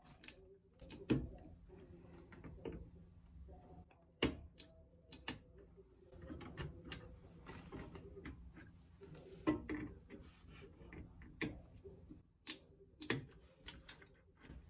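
Irregular sharp plastic clicks and knocks from an Intel stock CPU cooler's push-pin fasteners being twisted to release, with light handling rustle between them.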